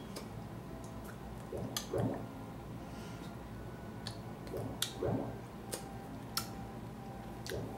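Hands tapping, slapping and brushing together during sign language, giving scattered sharp clicks. A soft low sound in pairs comes about every three seconds.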